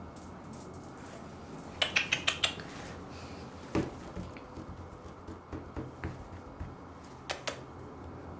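A quick run of about six sharp clicks, then a single knock and a scatter of softer knocks, and two more clicks near the end.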